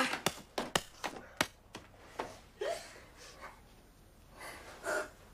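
A scuffle on the floor: a quick run of sharp smacks from blows in the first second and a half, then gasping and panting breaths as the fight stops.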